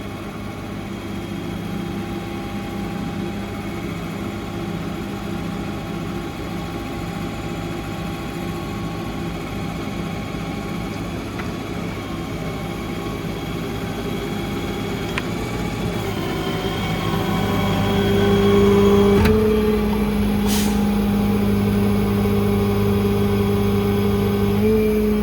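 6.7 Cummins ISB diesel of a service truck running steadily while it drives the hydraulic air compressor. About two-thirds of the way through, the engine speed rises and holds higher, with a couple of sharp clicks.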